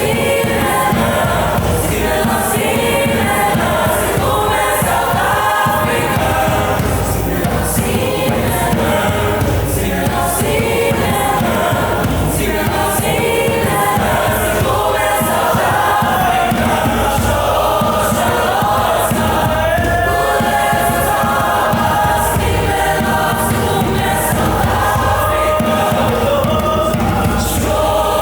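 Student choir singing a holiday piece over accompaniment with a steady beat.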